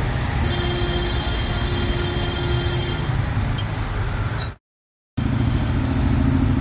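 Street traffic noise with vehicle engines running, a steady tone sounding for about two and a half seconds and a single click. The sound cuts out for about half a second a little past halfway, then returns with a motorcycle engine running steadily.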